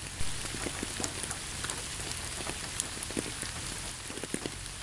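Steady rain falling on a surface, with scattered individual drops ticking through it.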